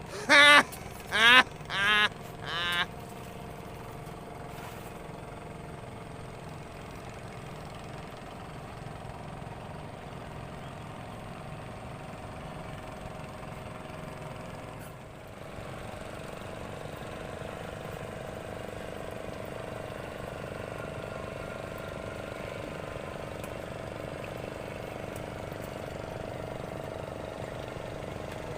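A small engine running steadily at idle with a low, even drone. Near the start, four loud short calls with a sliding pitch sound in quick succession, each quieter than the one before.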